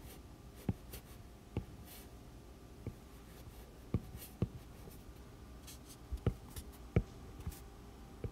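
Stylus drawing on a tablet's glass screen: light, sharp taps at irregular intervals, with a few faint swishes of pen strokes between them.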